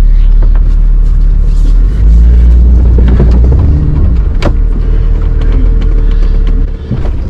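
A 1999 Jeep Wrangler TJ's 4.0-litre straight-six working under load as it crawls a rutted, muddy climb, with a loud low rumble throughout. The revs rise and fall about two seconds in. A sharp knock comes about halfway through, and a thin steady whine runs through the last few seconds.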